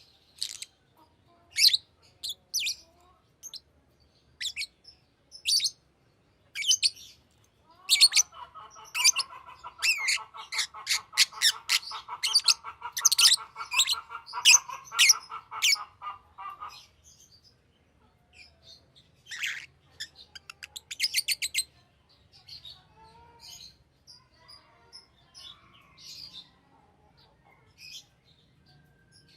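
Green lovebird chirping: sharp, high chirps, often in quick runs, with a lower continuous chattering under them from about eight seconds in for some eight seconds. The calls grow fainter and sparser toward the end.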